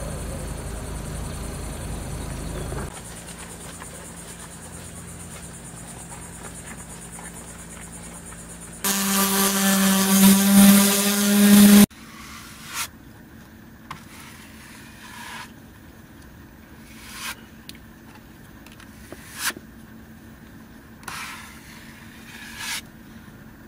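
Plastic putty knife spreading marine filler over a fiberglass hull patch, with short scraping strokes every second or two in the second half. Earlier, a loud, steady, pitched hum lasts about three seconds and cuts off abruptly; it is the loudest sound here.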